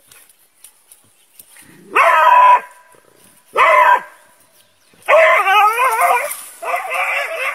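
Dog barking: two short high barks about a second and a half apart, then two longer, wavering howl-like barks.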